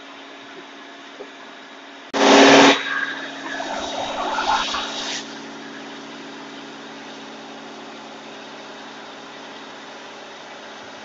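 Outrigger boat's engine running steadily. Just after two seconds in, a sudden loud burst of noise lasts about half a second, followed by a few seconds of rougher noise before the steady engine hum carries on alone.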